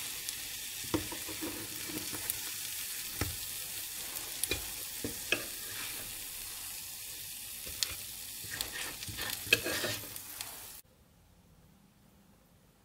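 Pancakes sizzling in hot oil in a frying pan, with scattered light knocks and scrapes of a spatula and fork against the pan as they are turned and lifted out. The sizzling cuts off abruptly near the end.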